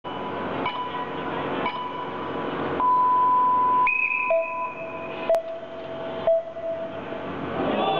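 A series of electronic beeps and held tones at changing pitches, a mid tone starting three times, then a higher and a lower one, over the hum of a crowd, with two sharp clicks near the middle.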